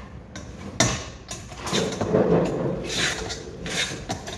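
Kitchen handling noises: a sharp knock about a second in, then a run of scraping and rattling as items are taken from a wall cabinet and handled over a cooking pot.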